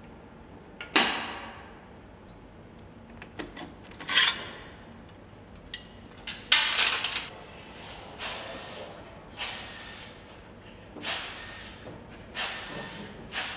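Metal engine parts knocking and clinking against the aluminium block of a Nissan GT-R V6 engine as it is assembled: about eight separate knocks, each with a short ringing tail.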